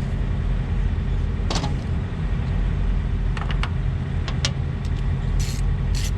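Steady low rumble of an idling diesel truck engine, with a few short clicks and knocks as parts are fitted back into the shroud.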